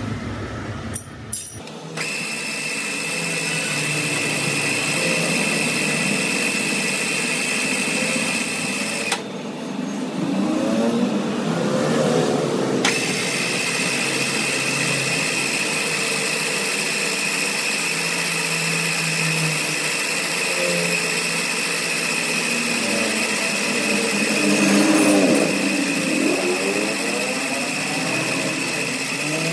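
An electric power tool running with a steady high whine. The whine stops about nine seconds in, then picks up again about four seconds later and keeps running.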